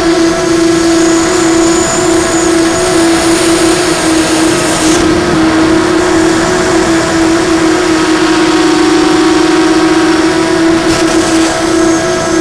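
Blackout Mini H FPV quadcopter's motors and propellers, heard from the onboard camera, running at a steady pitch with only slight wobbles as the throttle changes. A thin high whine sits above it for the first few seconds.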